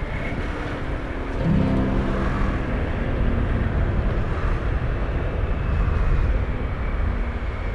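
Vehicle engine and road noise in slow traffic, a steady low rumble that gets louder about a second and a half in.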